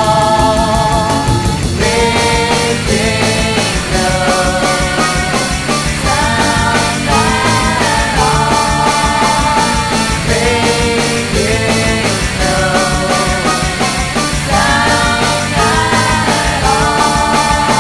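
Rock band music: drums playing a steady beat under a melodic lead line of held and sliding notes, loud.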